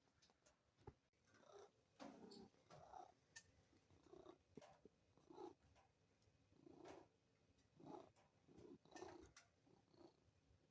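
Munchkin cat purring faintly, in soft uneven pulses with its breathing, with a few faint clicks.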